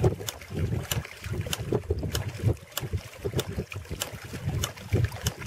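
Home-built hydraulic ram pump running on a creek's flow: its brass waste valve clacks shut about every 0.6 seconds, each clack with splashing water as the valve spurts. Each clack is the water-hammer stroke that drives a slug of water up the delivery pipe.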